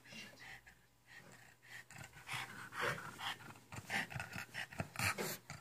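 A small dog panting, a run of quick short breaths that starts about two seconds in.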